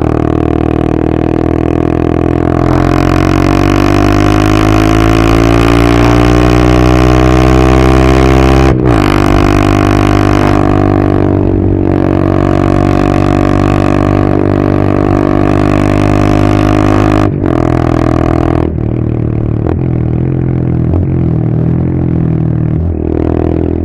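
Honda Monkey 125's single-cylinder engine through a custom full titanium exhaust, ridden on the move. The revs climb steadily for about nine seconds, then break sharply at a gear change. It runs steady until another break, and the revs drop off near the end.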